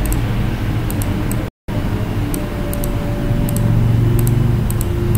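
Steady low background hum with a few faint, sharp computer-mouse clicks as an anchor point is dragged. The sound cuts out completely for a split second about one and a half seconds in.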